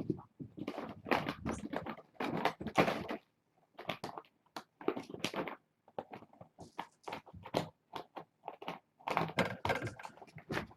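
Kittens moving about the room: irregular scuffles, rustles and small knocks, with crunchy clicks, coming in short flurries separated by brief pauses.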